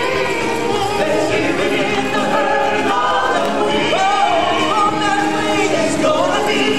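A choir of voices singing a song together over music.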